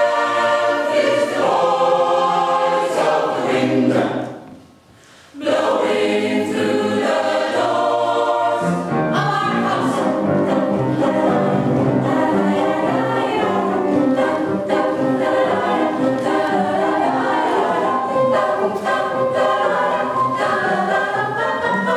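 Mixed choir of men and women singing in parts, breaking off for about a second some four seconds in, then singing on to a final chord near the end.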